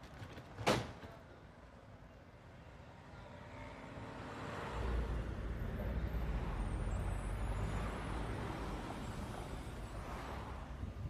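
A sharp knock less than a second in, then city traffic: cars driving past close by, the noise building from a few seconds in into a steady low drone of engines and tyres with one car swelling past near the end.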